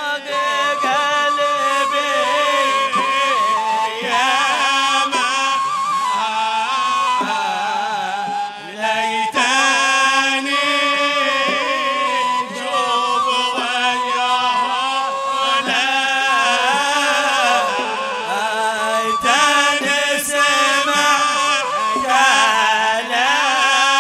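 Middle Eastern devotional music: a man's voice singing a qasida (religious ode) in Hadrami inshad style, accompanied by a wooden flute holding long notes.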